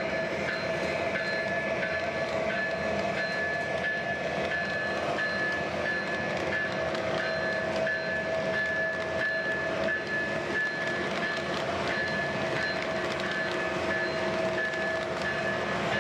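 O-scale MTH Premier model of a CSX AC4400CW diesel locomotive running on its layout, its Proto-Sound 3.0 speaker playing a steady diesel engine sound over the noise of the wheels on the track. Steady whining tones run under the engine sound throughout.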